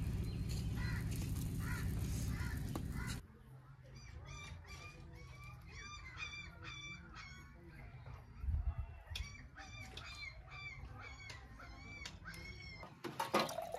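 A steady rushing noise that cuts off suddenly about three seconds in, followed by birds giving a long string of short, repeated calls, several a second, with a brief low thud near the middle.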